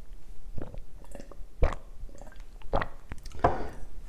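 A man gulping water from a glass: a series of short, separate swallows, irregularly spaced about half a second to a second apart.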